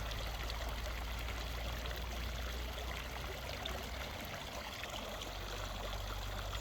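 Countryside fountain's water flowing and trickling steadily.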